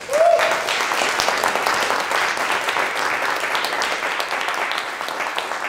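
Small audience applauding, a dense patter of hand claps, with a brief rising whoop right at the start.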